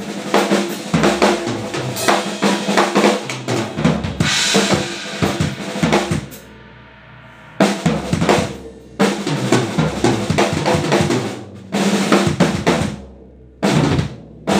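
Drum kit played through a set of close drum mics: fast snare and bass drum patterns with rolls and fills, a cymbal crash about 4 seconds in, and two short stops that break the playing, about 6 and 13 seconds in.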